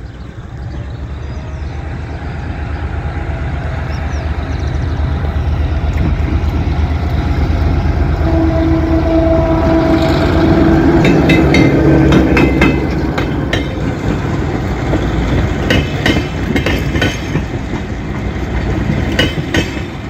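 G22 diesel-electric locomotive approaching and passing at close range, its engine drone growing louder until the loudest point about twelve seconds in. Passenger coaches then roll by, their wheels clicking over the rail joints.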